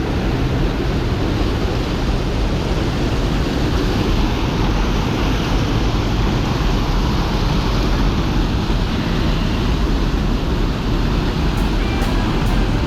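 Mountain creek water rushing steadily close by, a loud, even hiss and rumble.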